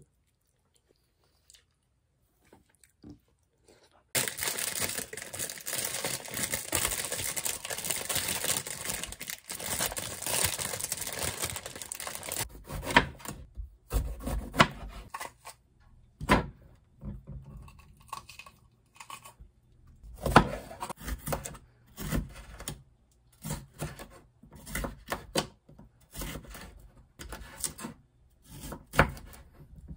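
Kitchen knife chopping red and yellow bell peppers on a wooden cutting board: irregular knocks of the blade through the pepper onto the board, from about twelve seconds in. Before that, from about four seconds in, there are several seconds of continuous noise.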